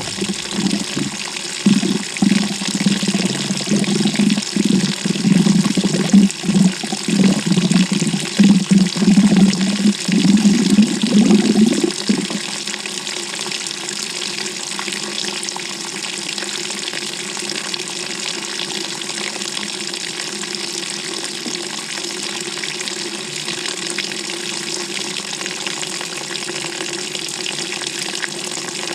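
Water rushing and sloshing in the tub of a GE GTW220ACKWW top-loading washing machine, heard from inside the drum early in the wash cycle. It surges unevenly at first, then about twelve seconds in settles into a steady hiss.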